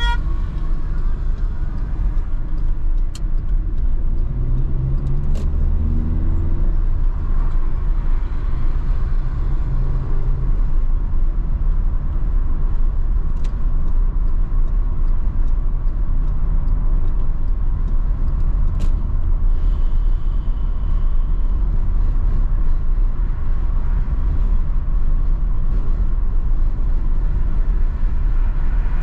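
Steady low rumble of road and engine noise inside a moving car's cabin at highway speed. A few seconds in, the engine note rises briefly as the car accelerates.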